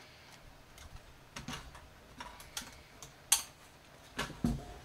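Scattered light clicks and taps of a plastic battery-pack housing and its cell block being handled, with a sharper knock about three seconds in and a couple more near the end.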